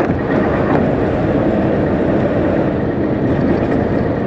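Renault Premium truck driving at speed, heard from inside the cab: a steady drone of engine and road noise.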